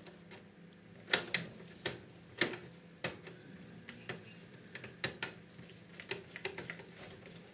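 Screwdriver working a screw into the sheet-metal top cover of a Sanyo VHR-7700E video recorder: irregular sharp metallic clicks and taps, the loudest in the first couple of seconds.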